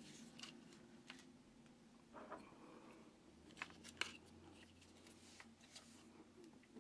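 Near silence with faint handling noise: a few light clicks and rubs as a microphone in its shock mount is turned over in the hands, the sharpest click about four seconds in.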